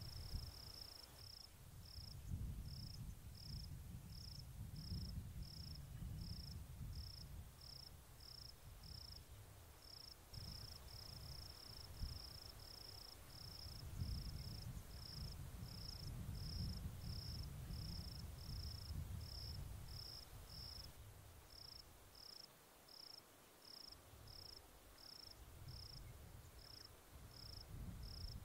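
A cricket chirping steadily: short high chirps at one pitch, about one or two a second, bunching closer together at times, over a low uneven rumble.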